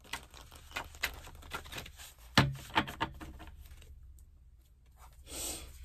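Tarot cards being handled and drawn from the deck: a run of small taps and clicks, the sharpest about two and a half seconds in, with a short swish near the end.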